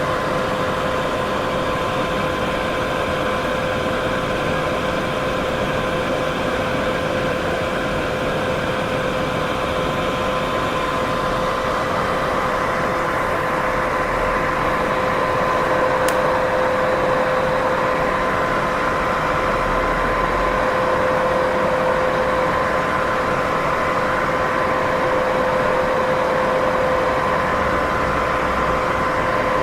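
Steady white noise for sleep masking, an even hiss with a constant hum in it and no changes, apart from one faint high tick about halfway through.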